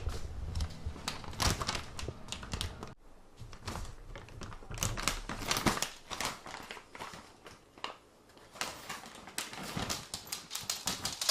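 Dogs chewing chicken-foot treats: irregular crunching and clicking that comes in clusters, with short pauses in between.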